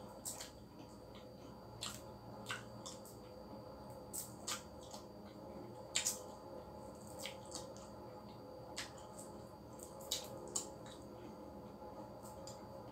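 Balut eggshell being cracked and peeled by hand: irregular small, sharp cracks and clicks, the loudest about six and ten seconds in, over a steady faint hum.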